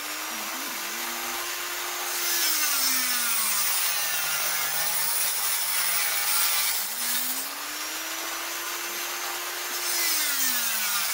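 Dremel rotary tool with a slitting-saw disc cutting into stainless steel, a continuous harsh grinding. The motor's pitch rises, holds, then drops, twice over, as the pressure on the disc changes.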